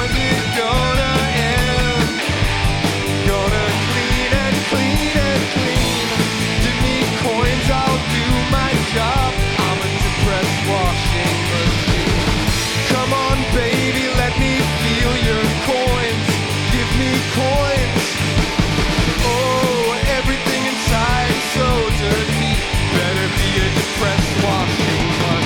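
Live rock band playing an instrumental passage: distorted guitars, bass and drums with a steady beat, and a lead line bending in pitch above them.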